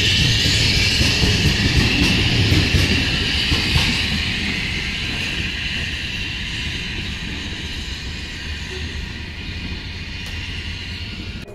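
Freight train of tank cars rolling past, its wheels rumbling under a high, wavering squeal. The sound fades steadily as the end of the train moves away.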